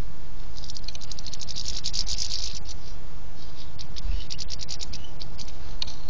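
Rapid sharp tapping of a bird pecking at a garden feeder close to the microphone, in two runs of about two seconds each, over a steady low hum.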